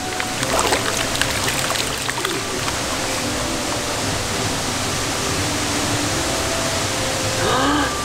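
Shallow stream running steadily, with light splashes in the first second as a plastic gold pan is dipped and then swirled full of water during gold panning.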